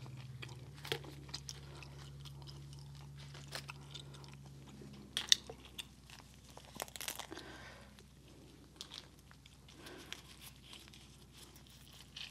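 Boiled crawfish shell being cracked and peeled by gloved hands close to the microphone: irregular crunches and snaps, with a few louder cracks midway.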